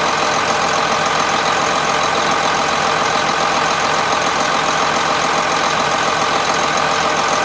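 1992 John Deere 770BH motor grader's diesel engine running steadily at a constant speed, heard up close at the open engine compartment.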